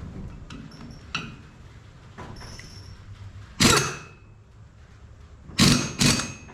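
Three sharp metal-on-metal blows, like a hammer striking steel parts. Each leaves a short high ring. A few light clinks come before them.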